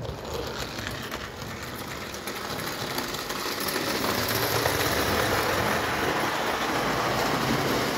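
Clockwork motor of a Märklin 'Storchenbein' 0 gauge tinplate locomotive whirring as it is let go and runs, its wheels and the trailing wagons rattling on the tinplate track. The sound starts suddenly and grows louder over the first few seconds, then holds steady.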